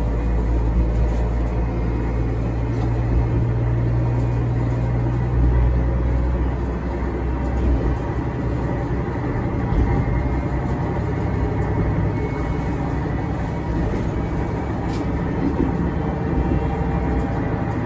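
Diesel railcar under way, heard from inside the driver's cab: a steady engine drone with wheels running on the rails. The low engine note drops away about six to seven seconds in, and a few faint clicks are heard near the end.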